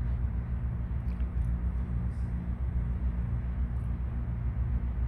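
A steady low hum with a rumbling undertone, continuing unchanged throughout.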